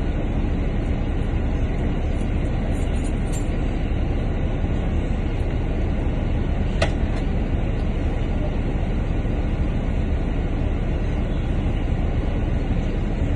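Double-decker bus idling while stopped at a red light, heard from inside the upper deck: a steady low rumble. One short click about seven seconds in.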